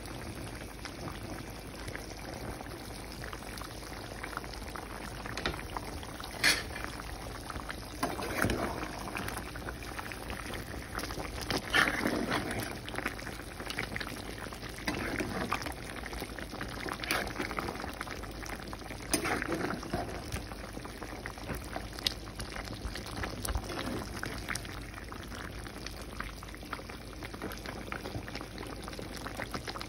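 Chicken curry bubbling and sputtering in a pan, with a spatula stirring and scraping through the thick gravy in several louder stretches.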